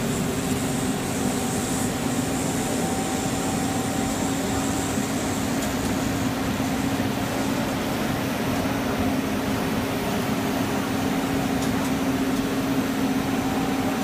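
Rubber hose extrusion line running: a steady mechanical hum from the extruder drive and line machinery, with a low steady tone and a fainter higher one. A faint high whine fades out about six seconds in.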